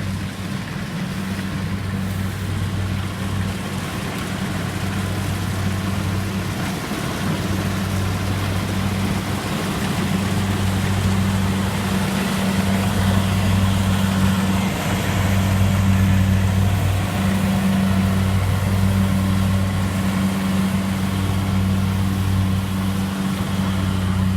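Kubota DC70 combine harvester's diesel engine running steadily with an even, deep hum, slowly growing louder.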